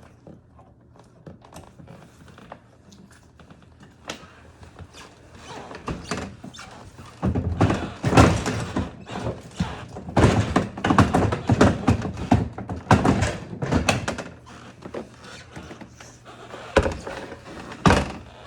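Knocks and thunks from handling a dishwasher's door and control panel. There is a dense run of clattering knocks from about seven to fourteen seconds in, then two sharp knocks near the end.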